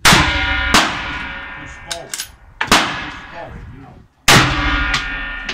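Rifle shots: four loud shots over about four seconds, each followed by a ringing echo that dies away over a second or more, with two fainter shots from elsewhere on the line about two seconds in.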